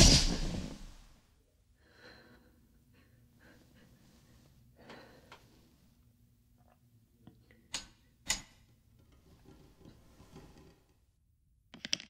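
A loud burst fades out over the first second. Then faint, uneven breathing follows, broken by two sharp clicks about eight seconds in and a brief crackle right at the end.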